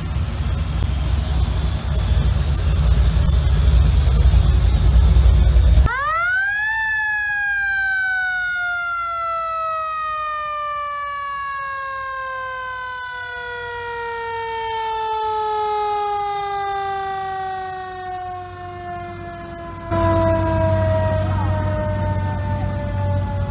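A low rumble, then about six seconds in the siren of a vintage fire truck winds up sharply and slowly winds down for about fourteen seconds, its pitch falling steadily all the way. The low rumble comes back near the end.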